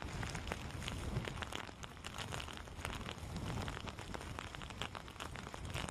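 Typhoon rain pouring down and hitting surfaces: a dense, steady patter of many drops.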